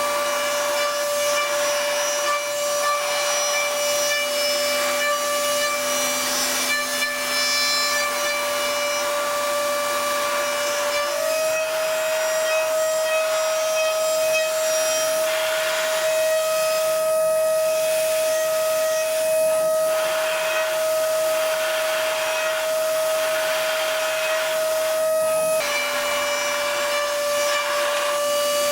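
DATRON high-speed milling machine cutting, its spindle and cutter giving a steady high whine over a hiss of cutting noise. The pitch steps up slightly about a third of the way in and drops back down near the end, as the cut changes.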